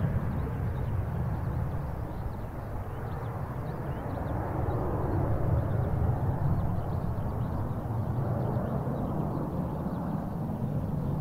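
Steady low rumble of jet aircraft engines, easing a little and then building again.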